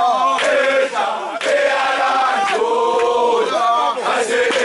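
A group of Zulu men chanting an ijadu dance song together, holding and sliding their sung notes, with a few short sharp noises cutting through.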